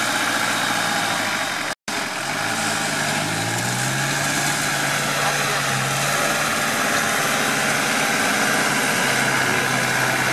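Off-road trial vehicle's engine running under load in deep mud, its revs rising over a couple of seconds early on and then held high and steady.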